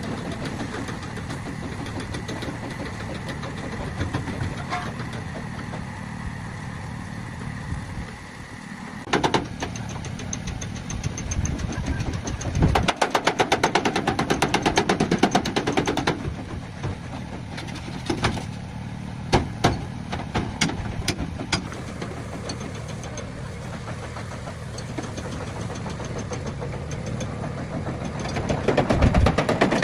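An engine running with a fast, even pulsing, growing louder for a few seconds about halfway through and again near the end.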